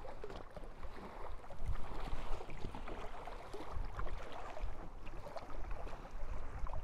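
Kayak paddle blades dipping and splashing as an inflatable packraft is paddled into the shallows, with water lapping around the raft's hull in small, irregular splashes.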